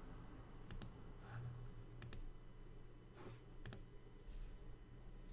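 Three faint computer mouse clicks about a second and a half apart, each a quick double tick of button press and release, over a faint steady low hum.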